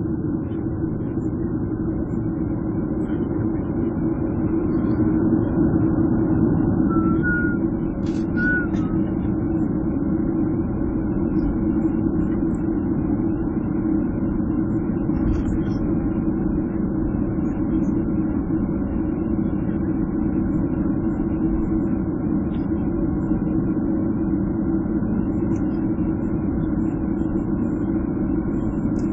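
Jet airliner cabin noise while taxiing: the engines run at low taxi power with a steady rumble and hum, heard from inside the cabin by the wing.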